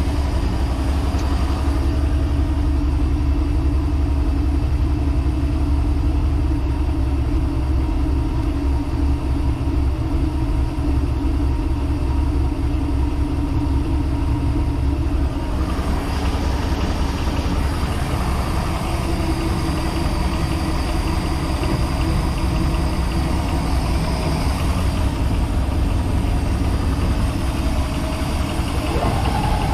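One of a boat's twin inboard engines running at a steady idle. Its tone shifts about halfway through.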